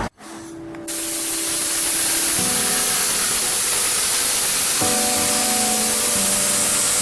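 Background music with held chords that change every couple of seconds, over a loud, steady hiss.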